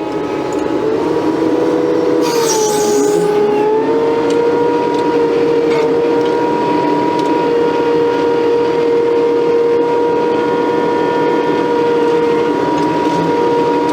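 Case skid steer running steadily at high throttle with a steady whine. The pitch dips briefly about two and a half seconds in, with a short hiss, then recovers.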